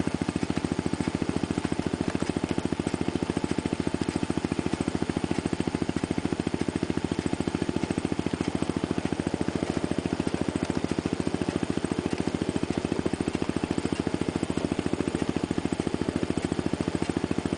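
Small engine of a ride-on miniature railway locomotive running steadily under way, with a fast, even putter.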